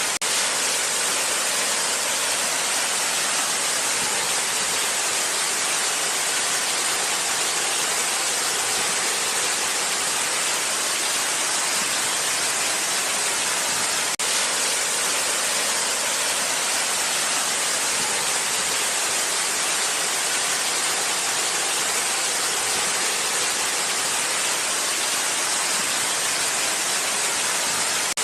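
Waterfall rushing in a steady, even hiss, with one brief break about halfway through.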